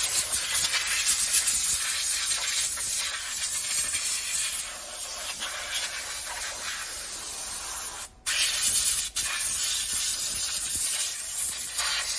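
High-pressure water jet washing the grime off a drum brake assembly, a steady hiss that cuts out briefly about eight seconds in.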